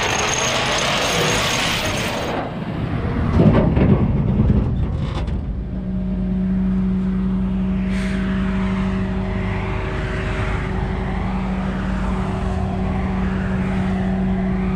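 Tow truck on the road: a hiss in the first two seconds, a rumble about four seconds in, then a steady engine drone.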